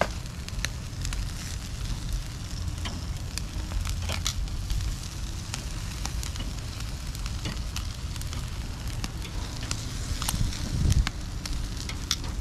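Food sizzling on a grill, with irregular sharp crackles and pops from drippings hitting the heat, and a low thump near the end.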